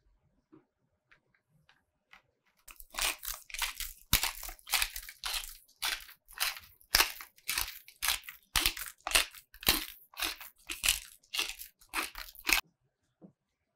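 Hand pepper mill being twisted to grind coarse black peppercorns: a run of gritty crunches, about two a second, starting about three seconds in and stopping shortly before the end.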